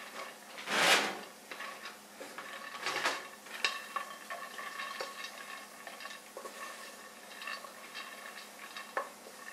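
Pine nuts toasting in a stainless steel skillet, stirred by hand and shaken, rattling and scraping against the metal. There is a louder swish about a second in and again around three seconds, then scattered light clicks.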